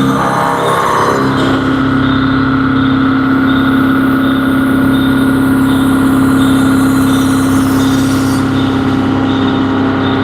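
CNC vertical machining centre running, its spindle and drives giving a steady pitched whine that shifts about a second in and then holds, with a faint regular ticking.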